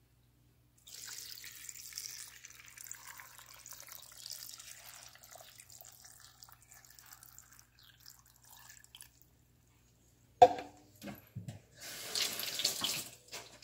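Water poured from a cup into a glass blender jar over chopped beets, a steady splashing pour that thins to a trickle after about eight seconds. Near the end comes a sharp knock, the loudest sound, followed by a few lighter knocks and a brief clatter.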